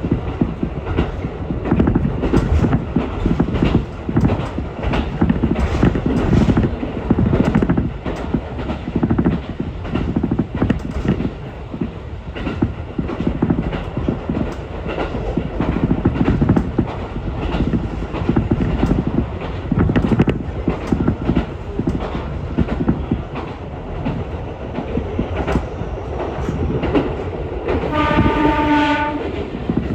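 Ichibata Electric Railway electric train running at speed, a steady rumble with wheels clicking over rail joints. Near the end its horn sounds once, a pitched tone lasting about a second.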